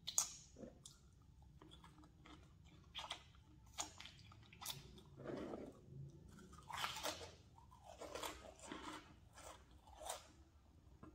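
Crunchy snack chips being bitten and chewed, a string of irregular crisp crunches with quieter chewing between them.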